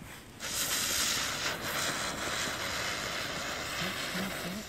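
A small ground firework spraying sparks, with a steady high hiss that starts about half a second in.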